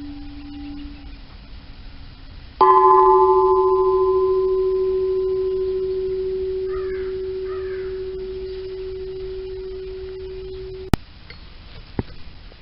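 A steel gas cylinder hung as a bell is struck once hard and rings out with one clear steady tone over a few higher overtones, slowly dying away, heard from about 100 feet away. A lower ring from the previous strike fades out at the start, and the ringing cuts off with a sharp click about eleven seconds in.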